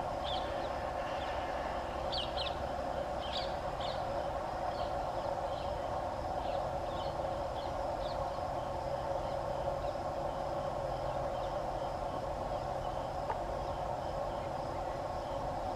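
Birds chirping in short calls, mostly over the first half, above a steady low rumble and hum from a distant approaching WDP4D diesel locomotive.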